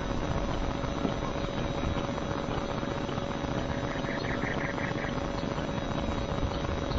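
Steady background hiss with a faint hum. About four seconds in comes a quick series of about seven short, high chirping notes lasting about a second.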